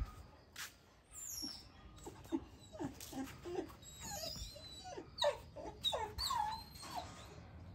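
Baby macaque giving a string of short, high whimpering squeaks that glide up and down in pitch, after a single sharp knock at the very start.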